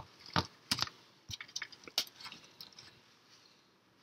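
Small plastic LEGO pieces clicking and ticking as fingers handle them and press them onto a build: several light, sharp clicks, mostly in the first half.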